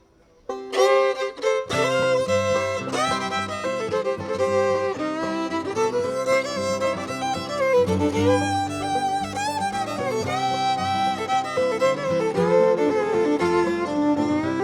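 Bluegrass band playing the instrumental intro to a song in C, with a fiddle leading. It starts out of a short silence about half a second in, and the low instruments join about a second later.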